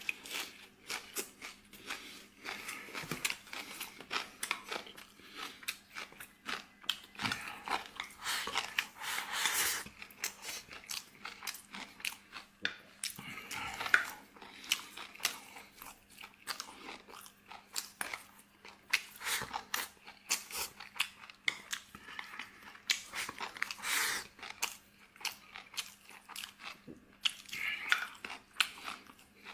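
A person chewing and biting while eating tomato-braised pork ribs with rice: many short, irregular mouth clicks and crunchy bites.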